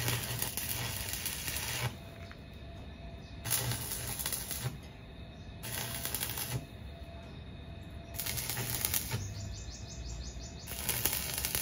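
Electric arc welding in five short runs, each one to two seconds of crackling and sizzling with a low electrical hum beneath it, separated by brief pauses.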